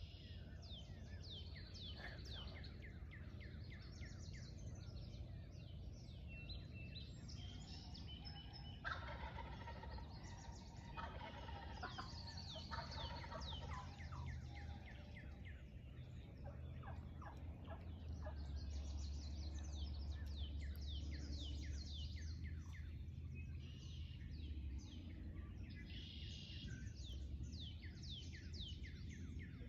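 Wild turkey gobbling, with rattling gobbles in the middle stretch, over a steady chorus of songbirds chirping.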